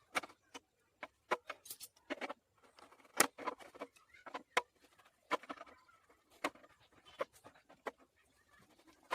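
Irregular clicks, taps and knocks of hand tools and metal parts being handled during engine repair work, uneven in strength and spacing, with the loudest knock a little past three seconds in.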